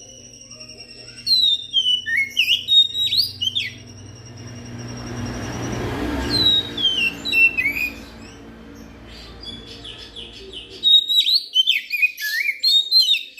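Oriental magpie-robin (kacer) singing: long held whistles, then phrases of quick rising and falling whistled notes, ending in a dense run of chattering notes. A low hum runs underneath and stops about eleven seconds in.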